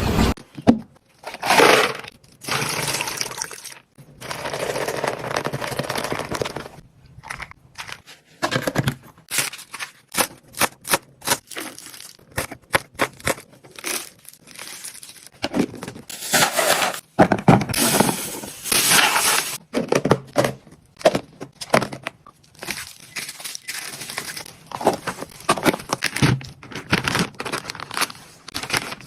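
Plastic packaging and fridge storage containers being handled: crinkling and tearing of plastic wrap and bags, broken up by many sharp clicks and taps at an irregular pace.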